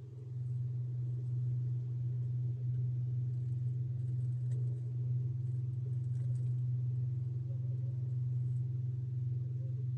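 A steady low mechanical hum at one deep pitch, with fainter higher tones, holding unchanged throughout.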